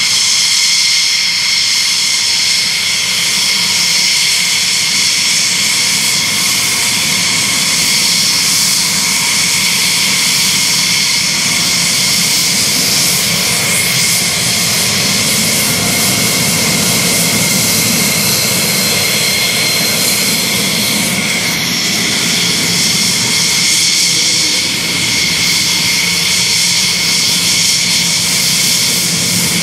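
F-16 fighter jets taxiing, each single turbofan engine at taxi power making a steady high-pitched whine over a constant rumble.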